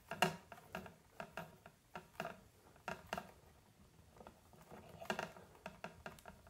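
Red plastic twist-on wire nut being screwed by hand onto three twisted neutral wires, with faint irregular clicks and scrapes as it threads tight and seats the splice. The clicks bunch up about five seconds in.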